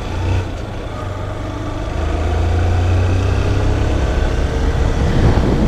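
Single-cylinder engine of a Honda CG Titan 160 motorcycle running under way. A whining drone of car tyres on the bridge's grated steel deck above grows louder about two seconds in. It sounds like a plane going down in the movies.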